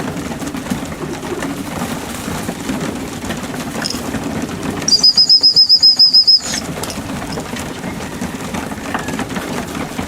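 A loft of young racing pigeons cooing, with wing flutters and shuffling. About five seconds in, a loud, high, rapidly pulsing trill of about seven pulses a second sounds for a second and a half, and the other sounds drop out while it lasts.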